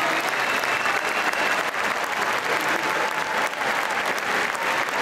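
Large arena crowd applauding and cheering: dense, steady clapping with scattered shouts through it.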